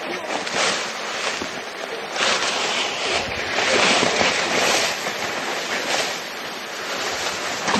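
Rustling and crunching of several people walking into dry scrub and brush. The noise swells and fades every second or so.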